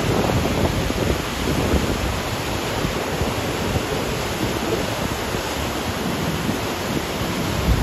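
Large waterfall pouring into a rocky gorge pool: a steady, heavy rush of falling and churning white water.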